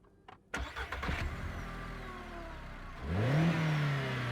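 Two small clicks, then a car engine cranks and catches, runs, and revs up about three seconds in before easing back down.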